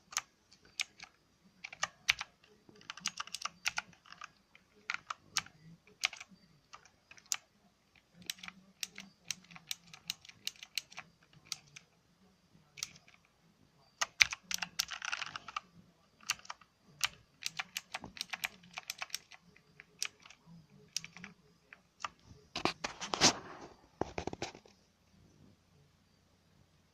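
Motospeed Inflictor CK104 mechanical keyboard with blue switches being typed on: uneven runs of sharp key clicks broken by short pauses, with denser flurries around the middle and near the end.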